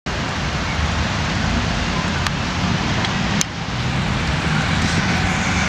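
Steady outdoor noise: a low rumble of road traffic with wind on the microphone, and a couple of faint clicks in the middle.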